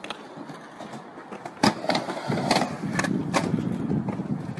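Skateboard on a wooden ramp: several sharp clacks of the board, then a low rumble of wheels rolling from about halfway in.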